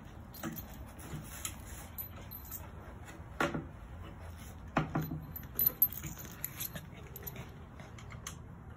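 Sparse light clicks and taps with a faint metallic jingle as a Samoyed puppy moves about on a hard floor. Two sharper clicks come about a second and a half apart near the middle.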